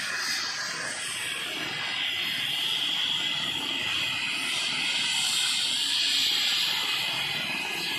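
Airbus H135 helicopter running on the ground before takeoff: a steady turbine whine over the rush of the turning main rotor, swelling slightly in the middle.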